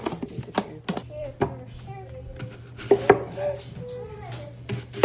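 Irregular sharp knocks and clicks of snack food being prepared and packed into snack boxes.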